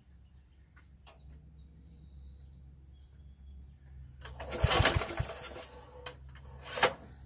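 Recoil starter pulled on a Troy-Bilt 33-inch walk-behind mower's Briggs & Stratton engine: about four seconds in, the rope whirs out and the engine turns over briefly, a few quick compression pulses, without firing. A single sharp knock follows near the end.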